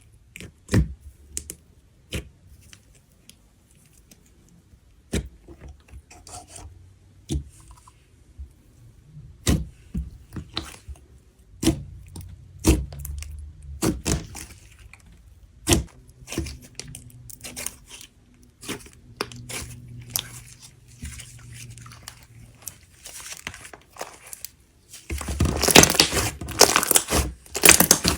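Clay slime being handled: a run of separate sharp pops and clicks as it is pressed, poked and stretched, turning into a dense, continuous crackling for the last few seconds.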